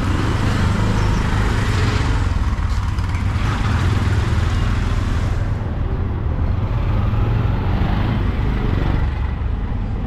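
Road traffic: motor vehicles running past close by with a steady low rumble and road noise; the hiss thins out about halfway through.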